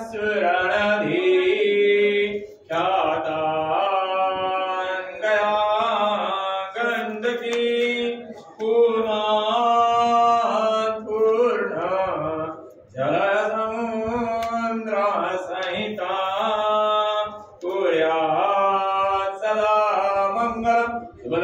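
Hindu wedding mantras chanted by a single voice in a sung melody, in long held phrases with short breaks between them.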